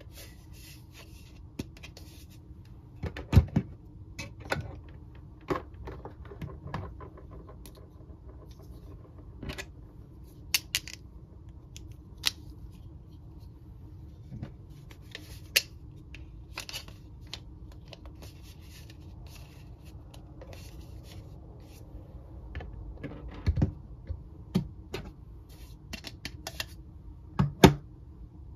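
Hard plastic Mr. Potato Head toy parts clicking and knocking as they are pushed into and pulled out of the hollow potato bodies and set down on a table: scattered taps at irregular intervals, with a few louder knocks.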